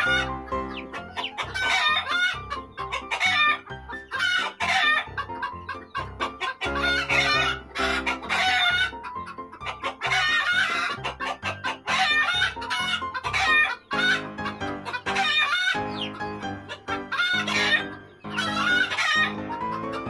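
Background music with a steady chord pattern, over chickens clucking.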